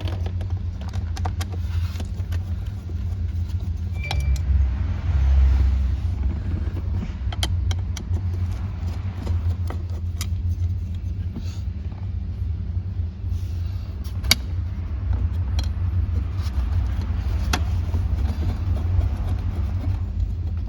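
Screws being backed out of the shifter bezel plate in a 1970 Mercury Cougar's center console: scattered small metallic clicks and clinks of hand tools and screws, over a steady low rumble.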